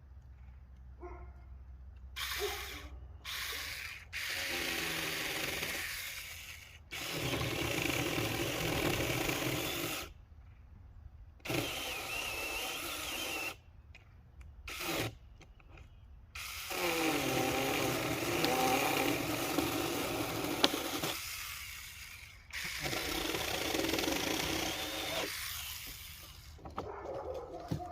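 Saker Mini battery-powered handheld chainsaw running in repeated bursts of a few seconds each, starting and stopping about six times as it cuts wood, its motor pitch shifting under load.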